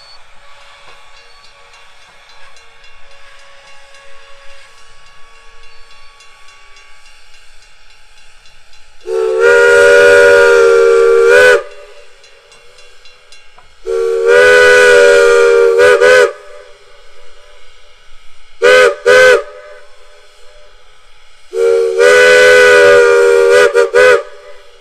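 Norfolk & Western #475, a 4-8-0 steam locomotive, sounding its multi-chime steam whistle: two long blasts, two short ones and a final long one, the standard grade-crossing signal. Each blast is a loud chord of several tones. Before the first blast, about nine seconds in, only the faint sound of the passing train is heard.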